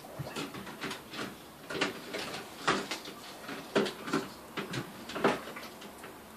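Scattered light taps and clacks, a few each second at uneven intervals, from plastic bath toys handled and knocked against a bathtub.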